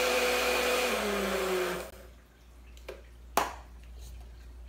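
Personal blender motor running steadily as it blends a chocolate milkshake, its pitch falling as it slows and stopping about two seconds in. A couple of short knocks follow.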